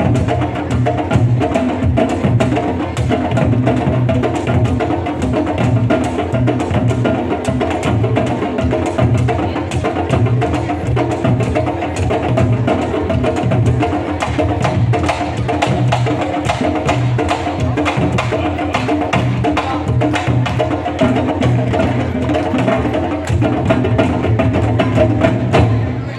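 Candombe drum ensemble of chico, repique and piano drums playing a steady, dense rhythm. Sharp clicks of sticks on the wooden drum shells run through the hand-and-stick drum strokes.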